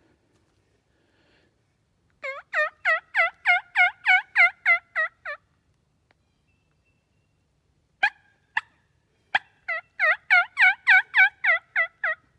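Two runs of loud turkey yelps, about four notes a second: about a dozen notes, then after a pause a few sharp clucks and a second run of about eleven notes.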